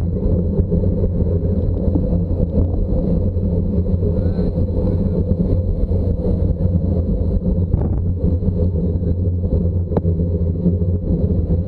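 Steady low rumble of a vehicle under way, engine and motion noise running on without change.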